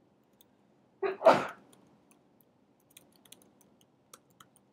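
A short, loud, sneeze-like burst of breath about a second in, the loudest sound here. After it come a few faint, scattered computer-keyboard key clicks as text is typed.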